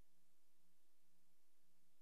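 Near silence: a blank soundtrack with only faint steady hiss and a low hum.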